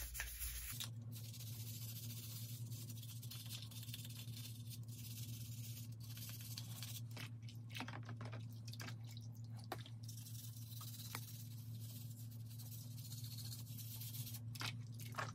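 Toothbrush scrubbing small plastic model-train parts in a tub of soapy water: faint, irregular brushing strokes and light splashes over a steady low hum.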